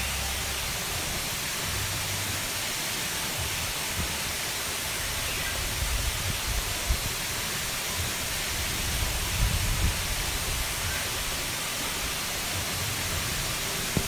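Small waterfall pouring over a rock ledge into a pool: a steady rush of falling water, with a few brief low bumps about six and again nine to ten seconds in.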